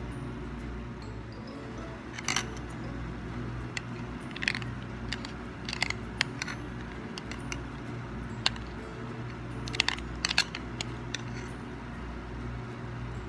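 A metal spoon clinking and scraping against glassware every second or two as whipped dalgona coffee is spooned onto a glass of iced milk, over a steady low hum.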